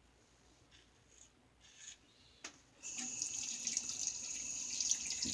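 Bathroom tap turned on about three seconds in, after a click. Water then runs steadily into the sink as a safety razor is rinsed under it.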